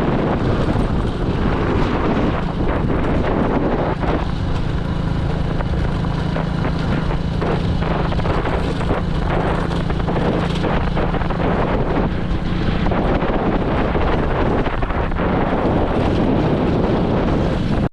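Heavy wind noise on the microphone over the steady hum of a moving vehicle's engine. It cuts off suddenly at the end.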